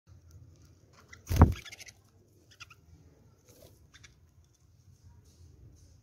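Budgerigars in a cage giving a few short chirps, with one loud brief thump and rustle about a second and a half in.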